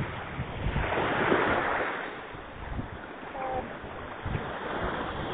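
Baltic Sea surf washing onto a sandy shore, one wave swelling up about a second in, with wind buffeting the microphone.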